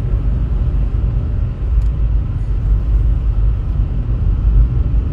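Steady low rumble with no clear events, its energy deep in the bass.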